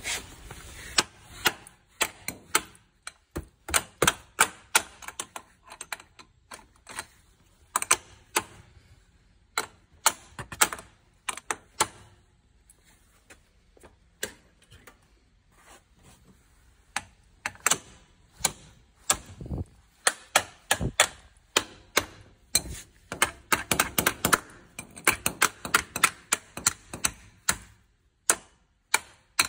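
Kick starter of a Honda Lead 100 two-stroke scooter worked again and again for a compression test. The engine turns over without catching, giving runs of sharp clicks and knocks with short pauses between kicks.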